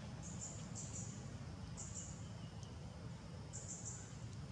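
Outdoor ambience: a low steady rumble with short, high-pitched chirps in small clusters of two or three, coming about half a second in, around two seconds and just before four seconds.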